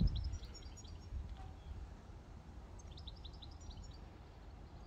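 A small songbird gives two short phrases of quick, high chirps, one at the start and one about three seconds in. A low rumble at the very start fades within the first half second.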